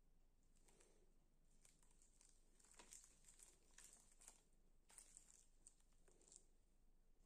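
A scatter of faint crinkles and soft ticks as gloved hands flex a silicone mould and pop moulded chocolate pieces out of it.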